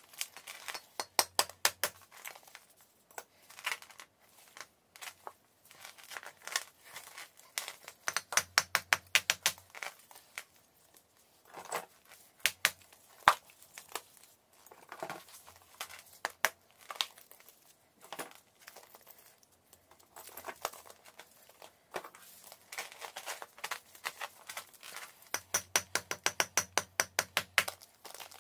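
Large block of dry chalk being crumbled and broken by a gloved hand: crackling, crunching runs of quick sharp clicks, with single pieces snapping off in between, the loudest snap about halfway through.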